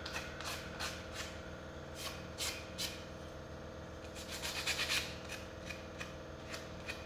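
Small wooden pieces being hand-sanded and rubbed: scattered short strokes, with a quicker run of strokes about four to five seconds in, over a faint steady hum.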